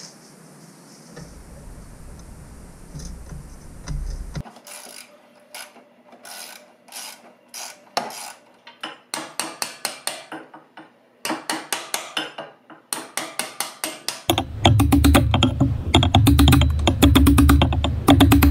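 Hammer tapping on a 1/4-inch socket extension to drive a bolt out: sharp metal taps, some single and some in quick runs. Music with a strong beat comes in for the last few seconds.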